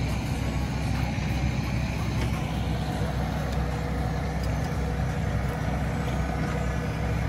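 Boat engine running steadily, a constant low hum with no change in pitch.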